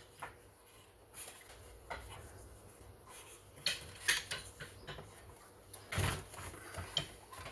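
Screwdriver and plastic chainsaw cover clicking and knocking as the air filter cover of a Stihl 031AV chainsaw is worked loose: a few scattered taps and clinks, the clearest about four and six seconds in.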